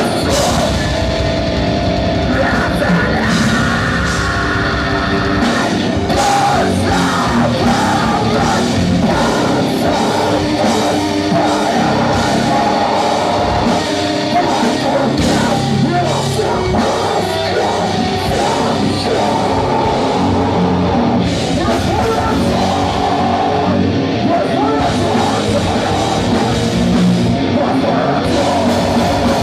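Live metalcore band playing loud, with vocals over guitars and drums.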